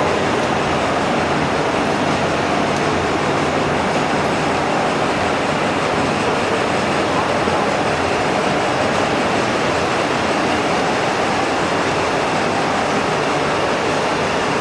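Metal lathe running steadily while turning a long pipe held in a steady rest, giving a continuous even machine noise.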